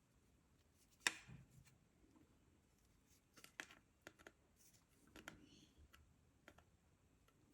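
Faint, scattered clicks and light taps of small 3D-printed plastic headphone parts being handled and fitted, with the sharpest click about a second in.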